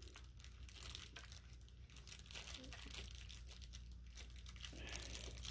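Faint crinkling and rustling of the plastic bag of a carburetor rebuild kit being handled, over a steady low hum.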